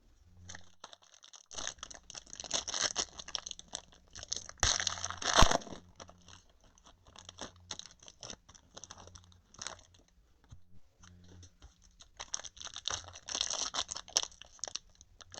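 Foil trading-card pack wrapper being torn and crinkled open: irregular crackling and tearing, with one sharp snap about five seconds in. The packs are hard to open.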